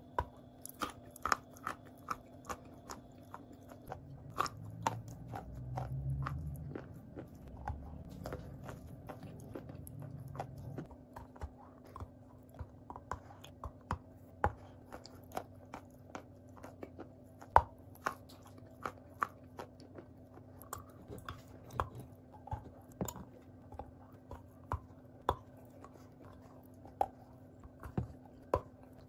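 A person biting and chewing a lump of chalk close to the microphone: sharp, crisp crunches about one or two a second, with a low rumble from about four to eleven seconds in.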